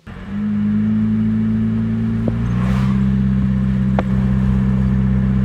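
Car driving at a steady speed, heard from inside the cabin: a loud, steady low engine drone with road noise. The drone's pitch shifts slightly about halfway through, and there are a couple of faint clicks.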